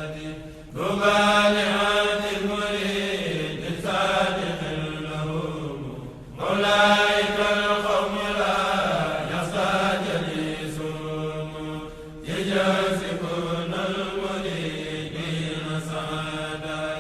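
Chanting voice in long, drawn-out phrases. A new phrase starts about every six seconds, and each sinks in pitch toward its end.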